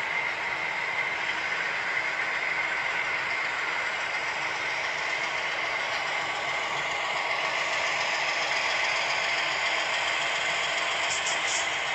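HO scale model train running on the layout: a steady hum with the rattle of wheels on the track, growing a little louder as a Southern Pacific diesel switcher approaches, with a few light clicks near the end.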